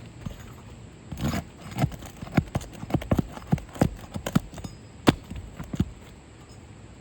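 Irregular run of sharp knocks from roofing work on a house roof, about a dozen of them over some five seconds.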